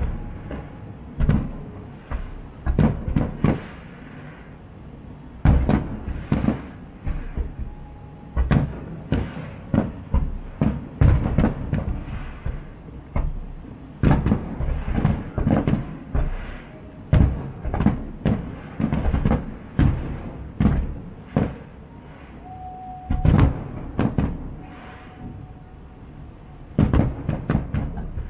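Aerial fireworks shells bursting over water: many booms in quick, irregular succession, often in clusters of several.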